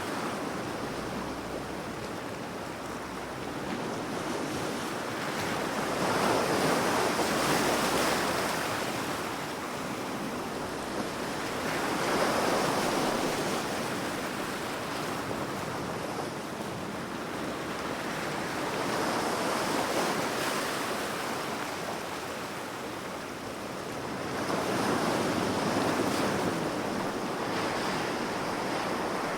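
Sea waves washing onto the shore, a steady surf hiss that swells as each wave breaks, about every six seconds.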